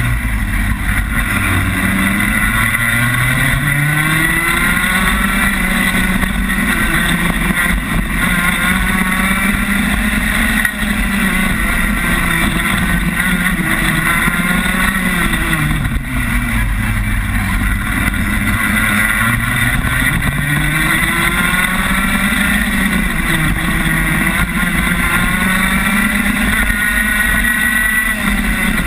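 Rotax Max 125cc two-stroke kart engine at racing speed, heard from on board. Its pitch drops and climbs back several times as the throttle is lifted for corners and opened again on the straights.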